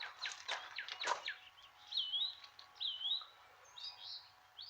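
Songbirds calling: a run of quick chirps in the first second, then two curving whistled notes about a second apart, followed by a few rougher, shorter calls.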